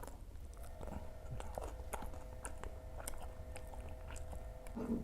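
Close-up mouth sounds of a person chewing fried snacks: soft, scattered wet clicks and small crunches. A faint steady hum sits underneath from about a second in until near the end.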